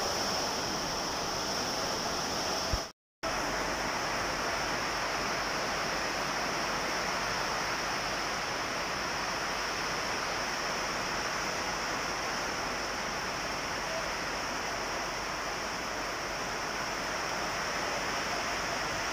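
Heavy rain pouring steadily, a dense even hiss that cuts out for a split second about three seconds in.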